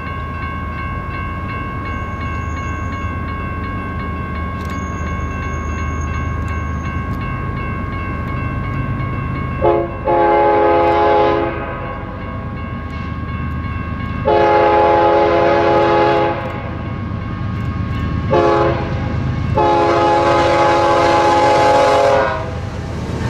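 Air horn of an approaching BNSF diesel freight locomotive sounding the grade-crossing signal: two long blasts, a short one and a final long one, starting about ten seconds in. Underneath runs the steady low rumble of the locomotives' diesel engines as the train draws near.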